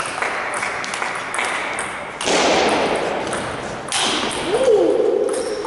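Table tennis rally: the ball clicking sharply off bats and table in quick succession. A louder rush of noise comes in about two seconds in, and a held tone that dips briefly in pitch sounds from about four seconds in.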